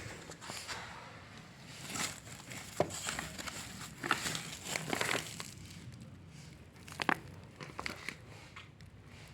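Irregular crinkling and rustling with scattered sharp clicks and knocks: material being handled.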